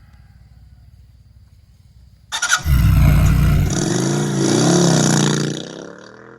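A vehicle engine starts about two seconds in and revs, rising and falling in pitch, then dies away near the end.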